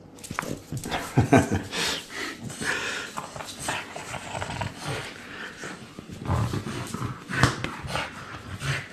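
French bulldog growling in play while tugging and shaking a rope toy, in irregular bursts.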